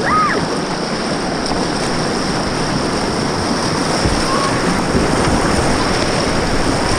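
Whitewater rapids rushing and splashing around a kayak as it is paddled through standing waves, water breaking over the bow. A short high squeak sounds right at the start.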